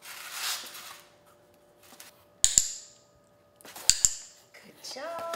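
Dog-training clicker giving sharp double clicks, once about two and a half seconds in and again about four seconds in, marking the moments the puppy works the box for a treat. In the first second, a rustle of the cardboard box as the puppy noses and paws it.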